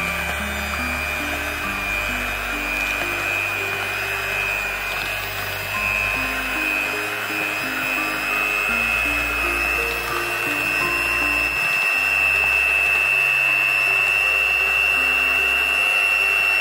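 Electric hand mixer running with a steady high whine as its beaters churn a thick cottage-cheese batter; the whine creeps up in pitch and gets a little louder about two-thirds of the way through. Background music plays underneath.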